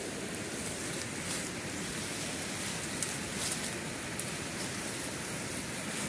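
Swollen, muddy river flowing: a steady rushing noise, with a few faint brief rustles on top.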